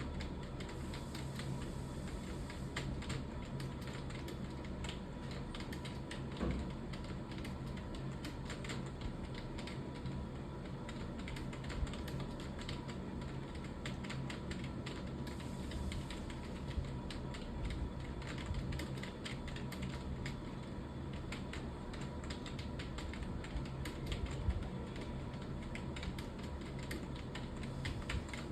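Computer keyboard typing: a fast, uneven run of key clicks over a steady background hum.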